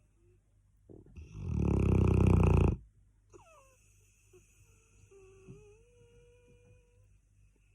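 Cane Corso snoring: one loud, fluttering snore about a second in that swells for nearly two seconds and cuts off sharply. After it, quiet breathing with a faint thin whistling tone.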